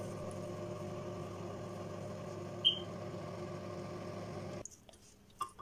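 Microwave oven running with a steady hum, which stops abruptly about four and a half seconds in. A short high tone sounds once about two and a half seconds in.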